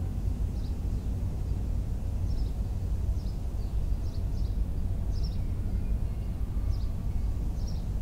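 Outdoor ambience: a steady low rumble with several short, high bird chirps scattered through it.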